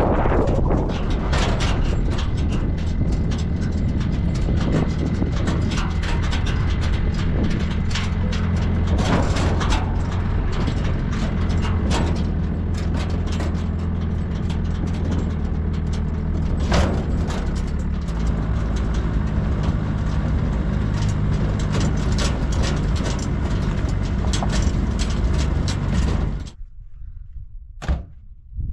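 Pickup truck engine running steadily as the truck drives over a rough dirt track, with frequent knocks and rattles from the body and load bed over the bumps. Near the end the engine sound cuts off to quiet outdoor ambience, with a single knock.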